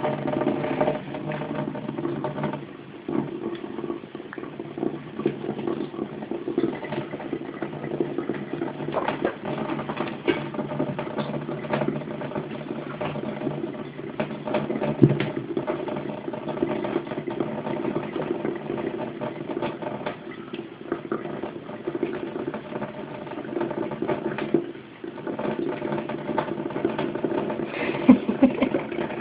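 Kitchen tap running steadily into the sink with a constant hum, broken by irregular splashes and ticks as a kitten paws at the stream of water.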